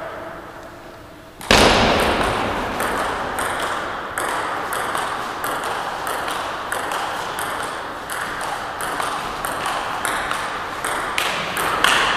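Table tennis rally: the ball clicks back and forth off the rubber of the bats and the table in a long, even rhythm, starting about a second and a half in, with the gym's echo behind each hit.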